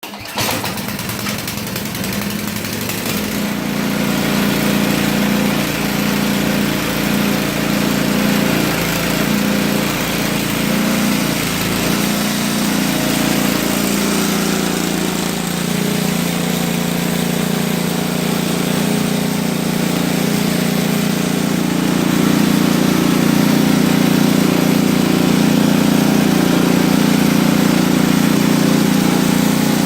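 A small engine running steadily, growing louder about four seconds in and again about twenty-two seconds in.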